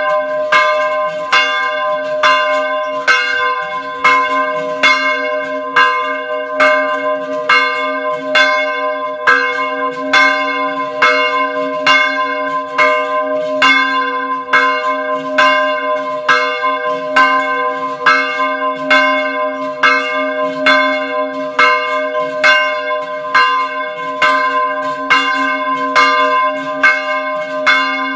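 A bell struck over and over at an even pace, about two strikes a second, its deep hum ringing on between strikes.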